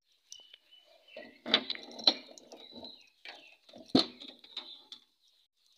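A vehicle's side door being opened: rustling and latch clicks, then a sharp knock about four seconds in. Faint bird chirps run in the background.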